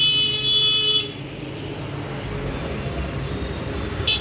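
Vehicle horn sounding a high, steady blast for about a second, then a short second toot near the end, over a steady low rumble.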